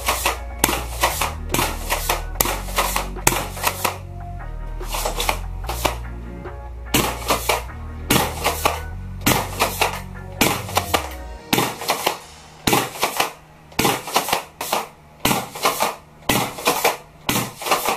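Electronic backing music with a stepping bass line, over a quick run of sharp cracks from a gas-blowback airsoft replica of the GM6 Lynx rifle, about two to three a second. The bass line stops about two-thirds of the way in while the cracks carry on.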